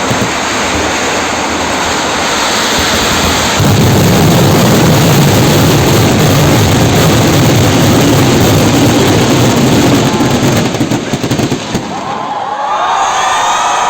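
A dense, continuous barrage of fireworks explosions merging into one steady roar. It grows louder about three and a half seconds in and dies away near the end, where crowd voices rise.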